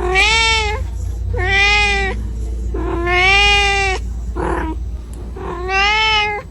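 Kitten meowing four times, long drawn-out calls of up to about a second each, with a shorter, rougher call between the third and fourth: calling for its mother.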